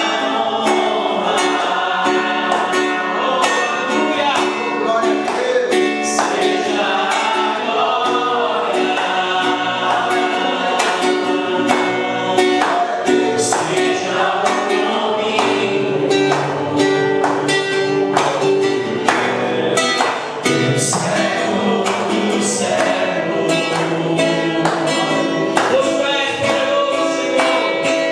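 A church congregation singing a worship song together, with instrumental backing and a steady beat.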